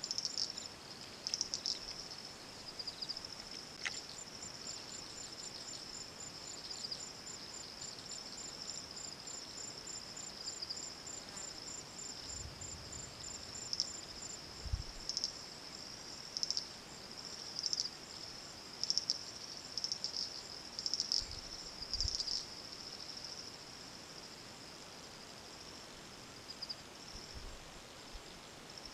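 Insect chorus in the bush: a steady high-pitched trilling that swells and fades in pulses, with a faster fine ticking above it for much of the time.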